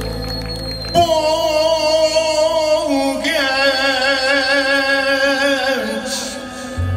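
Live Turkish gazino music: a male singer holds two long, wavering notes over a band of keyboard, drums and violins. The deep bass drops out while he holds the notes and comes back near the end.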